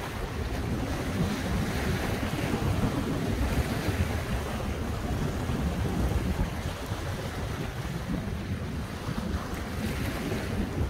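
Strong steady wind buffeting the microphone over the wash of sea waves.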